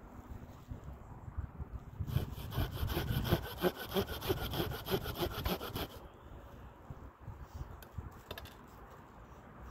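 Hand saw cutting through pine wood in a run of quick back-and-forth strokes, starting about two seconds in and stopping about four seconds later.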